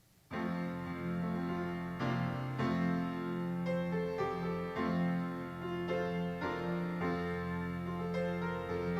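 Keyboard instrumental introduction to a choir anthem: piano-like chords start suddenly about a third of a second in and move through a series of held notes, with no voices yet.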